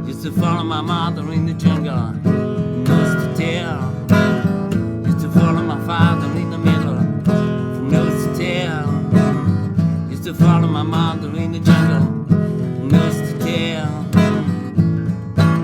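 Instrumental passage of a song: strummed acoustic guitar with a wavering lead melody over a steady beat.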